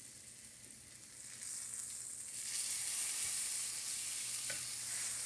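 Flat iron steak frying in butter in a cast iron skillet: a steady sizzle that grows louder about two seconds in.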